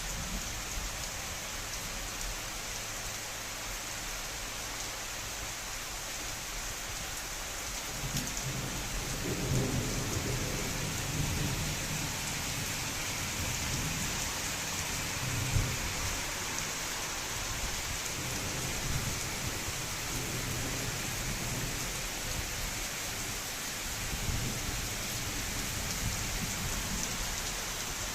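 Steady rain hissing. From about eight seconds in, a low rumble joins it and comes and goes.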